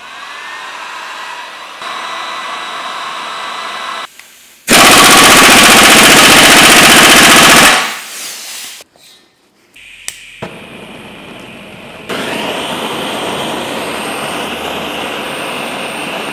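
Handheld gas blowtorch flame hissing steadily as it heats a seized bolt and flange on the engine's front to loosen them. In the middle there is a very loud rough roar lasting about three seconds, and a click about ten seconds in before the steady hiss resumes.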